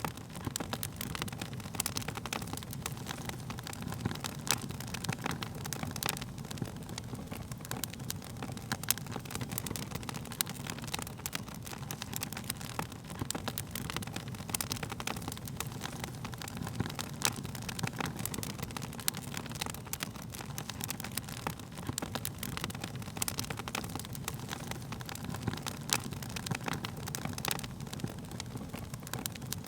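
Wood fire burning, with a steady low rumble of flames and frequent sharp, irregular crackles and pops of burning wood.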